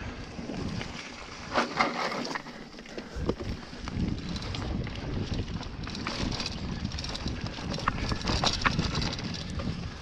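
Hardtail mountain bike rolling fast down rocky dirt singletrack: tyres crunching over dirt and stones, with sharp clattering knocks as it hits rocks, over wind rumbling on the microphone.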